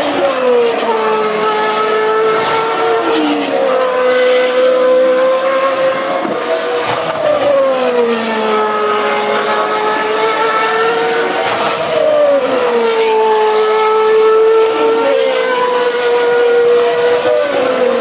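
GP2 race cars' 4.0-litre V8 engines at racing speed, several cars passing one after another, each engine note dropping in pitch as it goes by and then holding high and steady while other cars are heard around the circuit.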